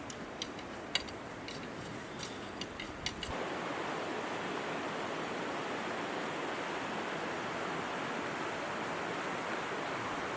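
Steady rushing of creek water. For the first three seconds or so a quieter hiss carries a series of sharp light clicks, then the even rush of water takes over.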